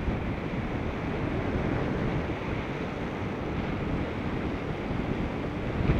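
Steady wind noise rushing over the microphone of a moving bicycle, mostly a low rumble with a hiss above it.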